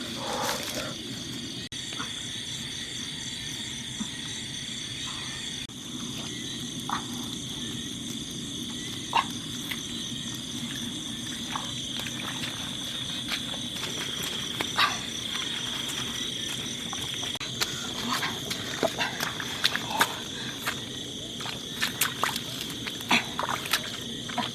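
Night-time rainforest chorus: a steady high insect trill with pulsing buzzes above it, and short frog calls scattered through, coming more often in the second half.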